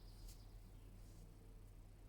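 Near silence: room tone with a faint steady low hum and a couple of faint ticks.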